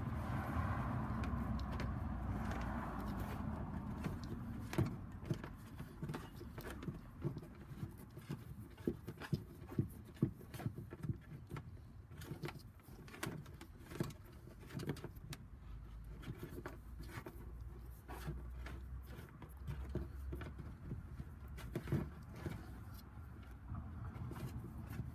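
Scattered plastic clicks and taps as a parking sensor is handled and pushed into a drilled hole in a car's plastic bumper, over a low steady rumble.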